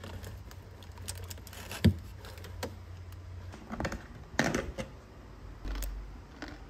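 Scattered small clicks, taps and knocks of objects being handled over a low hum, with one louder thump about two seconds in and a quick run of clicks about four and a half seconds in.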